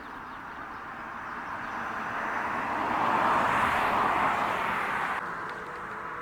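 A passing road vehicle: a steady rush of traffic noise that grows louder to a peak about three to four seconds in, then drops away sharply about five seconds in.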